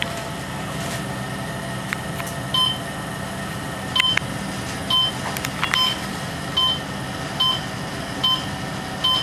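Elevator car's short electronic beep repeating about every second, starting a little way in, over the steady low hum of the moving car, a beep for each floor passed.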